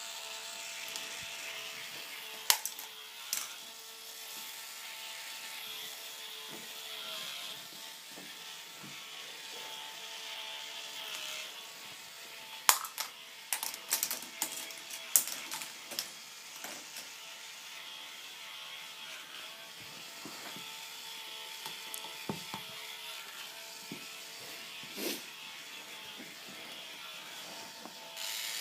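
K'NEX ball machine running: small electric motors drive the plastic lifts with a steady whine and ratcheting clatter, while plastic balls click and clack along the tracks. There are a few single sharp clacks, and a quick run of them about halfway through.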